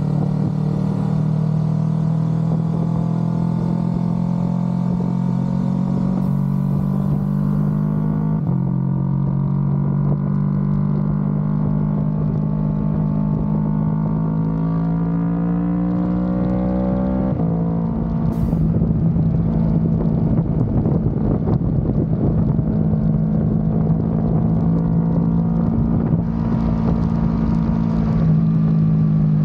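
Kawasaki Ninja 650 parallel-twin with an Akrapovic exhaust running under way: the engine note holds steady, then climbs steadily for about eight seconds as the bike accelerates and drops suddenly at an upshift, after which it runs at a lower steady pitch with more rushing noise.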